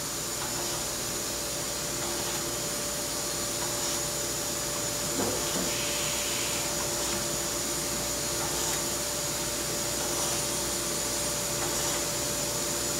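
Okamoto PSG52DX surface grinder running under power: a steady machine hum with faint constant whine tones.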